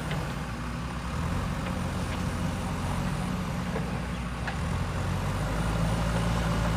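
Heavy diesel engine of a backhoe loader or tipper truck running steadily, with a few faint clicks.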